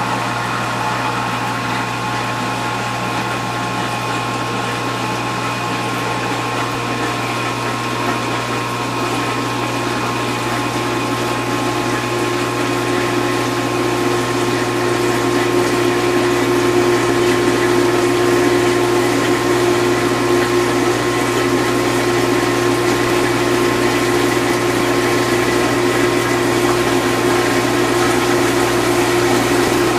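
Vintage KitchenAid Superba KDS-18 dishwasher running its main wash: motor and pump humming steadily under the rush of spraying water. A pump tone grows stronger about halfway through.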